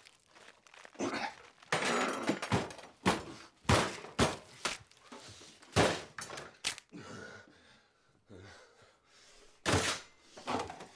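A series of heavy thumps and smashes at irregular intervals, with crunching and tearing between them: lettuce and tomatoes being hit and torn apart by hand on a kitchen counter and cutting board.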